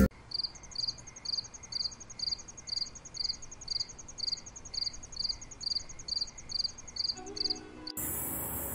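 Insect chirping in a steady rhythm, high-pitched chirps about twice a second over a faint high buzz. Near the end it gives way to a steady low hum of road traffic.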